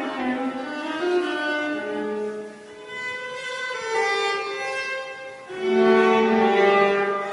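Violin playing slow, sustained bowed notes, growing louder about two thirds of the way through.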